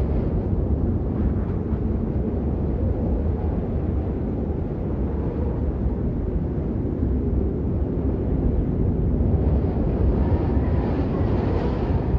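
Snowstorm wind blowing hard and steadily, a deep low rumble with a rushing hiss above it. About three-quarters of the way through, a gust builds, adding more hiss and a faint howl.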